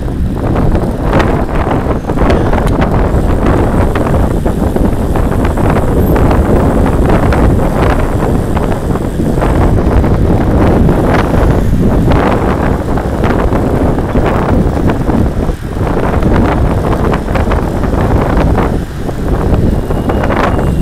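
Wind buffeting the microphone of a camera on a moving road bike, a loud, steady rushing noise.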